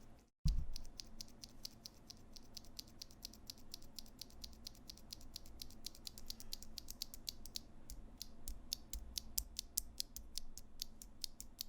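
Unlubed Gateron Yellow linear mechanical key switch pressed over and over, giving sharp clicks several times a second. The switch sounds scratchy because it has no lube.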